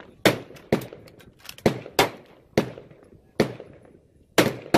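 Gunfire on an outdoor shooting range: about eight sharp shots at uneven intervals, each with a short echoing tail.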